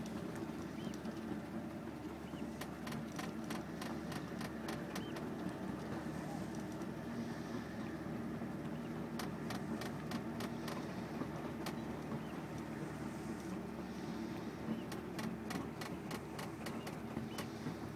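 Steady low machinery hum carrying across the water, with several even tones in it, and irregular faint clicks and ticks scattered over it.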